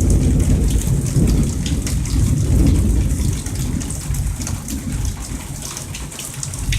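Thunder rumbling over steady rain. The rumble is loudest in the first few seconds and fades away after about four, while the patter of the rain carries on.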